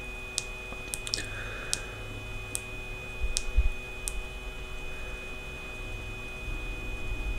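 Small metal flashlight being handled while its side switch is held: a few scattered light ticks and a couple of dull knocks about halfway through, over a faint steady high-pitched tone.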